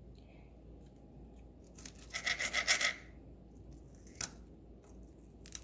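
Knife sawing back and forth through romaine lettuce against a glass cutting board: a burst of quick rasping strokes about two seconds in, then a single sharp click a little after four seconds.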